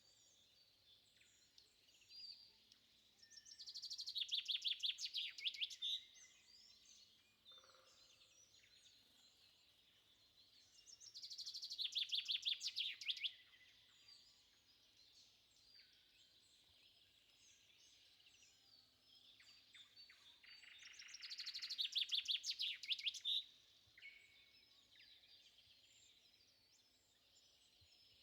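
Birdsong: one bird repeats a loud, rapid trilling song three times, each phrase building over two or three seconds and stopping abruptly, with quieter chirps from other birds in between.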